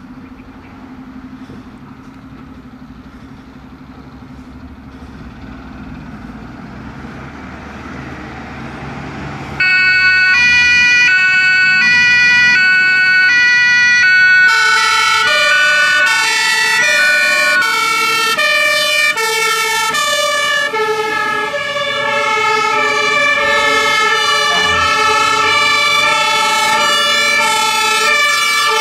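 Diesel engines of fire engines pulling out, growing louder. About ten seconds in, a loud two-tone German emergency-vehicle siren (Martinshorn) starts. A few seconds later a second two-tone siren joins, out of step with the first, so the tones overlap.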